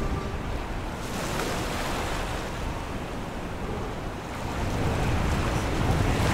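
Small sea waves washing onto a sandy beach, a steady rush of surf with wind on the microphone, growing a little louder in the second half.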